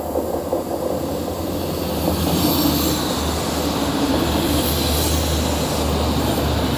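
Two-car Alstom diesel multiple unit passing close by: a steady engine hum and running noise from wheels on rail, growing louder about two seconds in as the cars go past.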